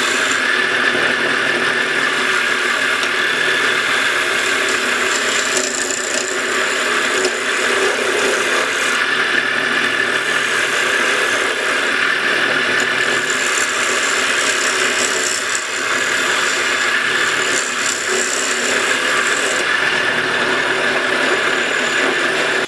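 Wood lathe running while a gouge cuts the spinning wooden blank, rounding it off with a steady, continuous cutting noise that cuts off suddenly at the end.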